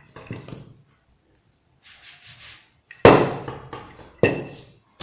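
Wooden rolling pin working a slab of dough on a plastic-covered table: a few soft rubbing strokes, then two sharp knocks about a second apart, the first the loudest.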